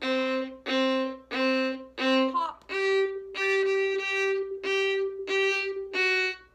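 Solo violin playing short, separate bow strokes: four notes on a lower pitch, then six more repeated on one higher note, in an even rhythm.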